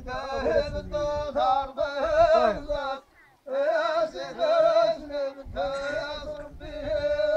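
A man singing solo in a high, ornamented voice, holding long wavering notes in phrases, with a brief breath pause about three seconds in.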